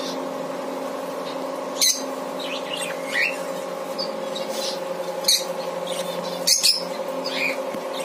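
Caged budgerigars chirping, with a few short, sharp squawks, over a steady low hum.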